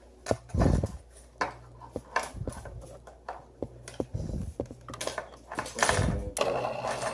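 Scattered small clicks and taps, with two heavier knocks about half a second in and near six seconds, from handling parts and wiring while sensors are reconnected to an economizer control module; a faint steady hum runs underneath.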